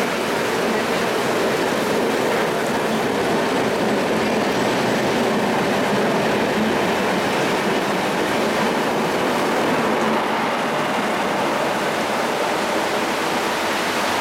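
LHB passenger coaches rolling steadily past a platform as an electric-hauled train accelerates away, with continuous wheel-and-rail noise. Heavy rain falls throughout, mixed into the sound.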